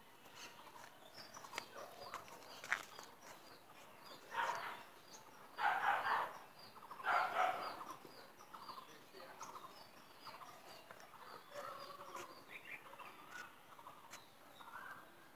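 Muscovy ducks calling, soft and low, with a few louder, raspy calls bunched in the middle. Thin, high chirps repeat quickly throughout.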